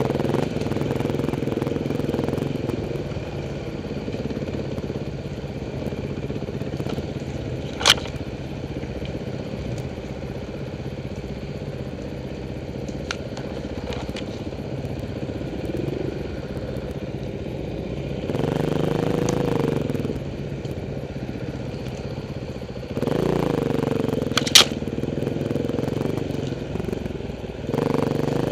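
Off-road dirt bike engines running at low speed on a rough forest trail. The throttle is opened in louder, wavering bursts about two-thirds of the way through and again near the end. Two sharp knocks are heard, one about a quarter of the way in and one during the later burst.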